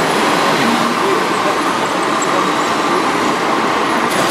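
Steady, even din of radio-controlled model construction machines running in a crowded hall.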